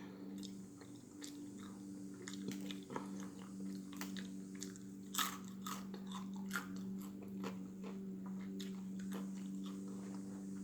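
Close-up chewing and biting of a Cheetos-coated chicken sandwich, with scattered crisp crunches and mouth smacking. A steady low hum runs underneath.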